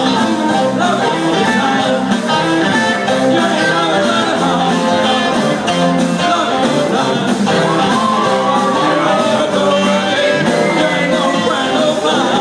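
Live rock and roll band playing through a PA, with a man singing lead over saxophone, keyboard and drums.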